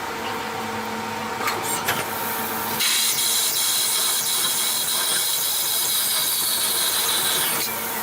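CNC lathe running with a steady machine hum and a few clicks. About three seconds in, a loud high hiss starts and lasts about five seconds, stopping shortly before the end.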